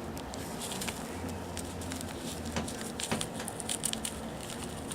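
Faint scattered clicks and rustles of a small glass nail polish bottle being handled and turned in the fingers.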